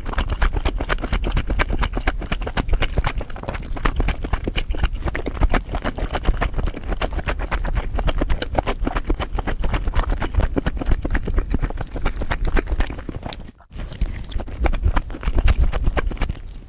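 Close-miked eating: chewing and crunching food in a dense run of crackles and wet clicks, broken by a sudden brief gap near the end.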